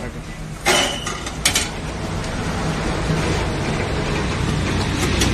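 Steady low engine hum with a hiss over it, broken by two sharp clinks, one a little under a second in and one about a second and a half in.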